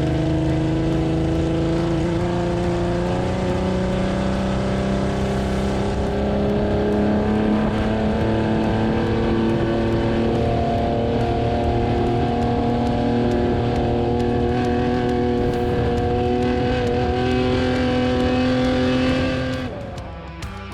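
Off-road race truck engine running hard under load, its pitch climbing slowly and steadily, over the rattle of the truck on rough ground. It drops away suddenly near the end.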